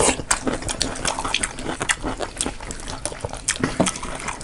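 Close-up eating sounds: wet chewing and lip smacks with irregular sharp clicks, several a second.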